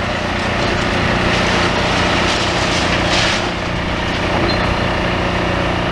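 Heavy demolition machinery running steadily: diesel excavator engines droning with a constant low hum, and a louder rush of grinding noise about halfway through.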